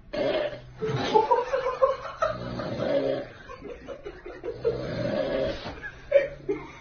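A man snoring loudly in irregular, rasping stretches.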